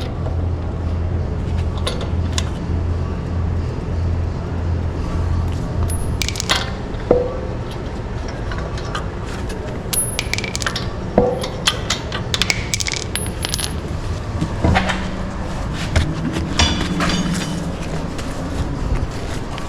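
Metal hardware and hand tools clinking and scraping, with a steady low hum for the first six seconds or so and a run of separate sharp clinks after it, two of them ringing briefly.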